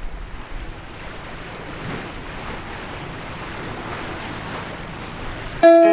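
Ocean waves washing and surging with wind, an even rushing that swells now and then. Near the end it is cut off abruptly by a ringing electric guitar chord.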